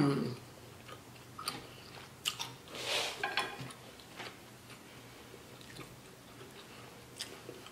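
Close-miked chewing of a bite of steak: soft wet mouth clicks and smacks, busiest in the first few seconds with a short louder noise about three seconds in, then quieter.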